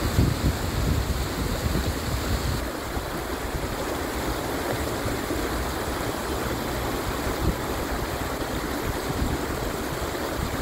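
Steady rush of running water from a shallow, muddy stream, with a low rumble that eases about two and a half seconds in.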